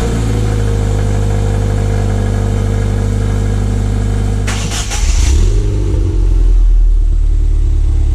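Toyota 86's flat-four engine at a steady fast idle just after a cold start. About four and a half seconds in, a second car's engine cranks and fires, then settles into a deeper, louder idle.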